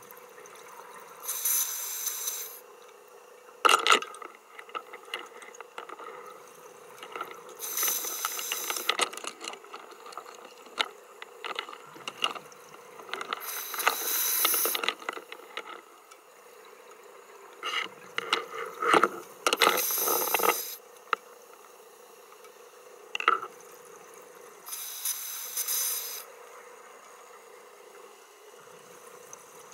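Scuba diver's regulator breathing underwater, heard through the camera housing: a hissing rush of exhaled bubbles about every five to six seconds, with sharp clicks and knocks in between and a faint steady hum underneath.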